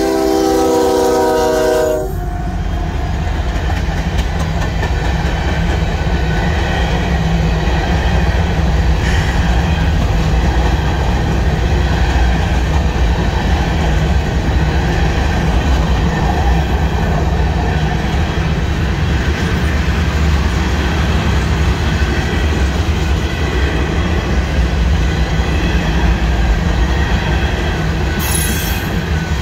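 Union Pacific freight locomotive's horn sounding and cutting off about two seconds in, then the freight train rolling past: a steady rumble and clatter of steel wheels on rail as covered hopper cars go by, with a brief hiss near the end.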